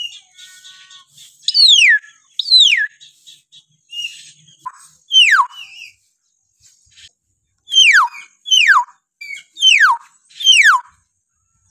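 Kalimantan hill myna (beo) calling: a series of about seven loud whistles, each sliding steeply down in pitch in about half a second, with short, softer chirps between them.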